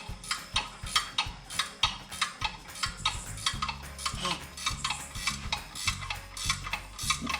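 Hand ratchet wrench clicking steadily, about three or four clicks a second, as a bolt on the transmission is run in. A low steady hum comes in about halfway through.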